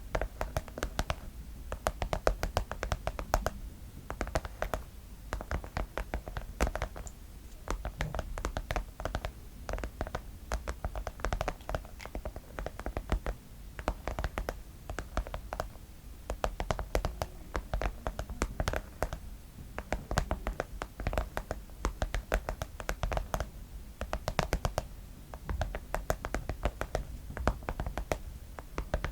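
Fingernails tapping and scratching on a pencil case, in quick runs of taps with short pauses between them.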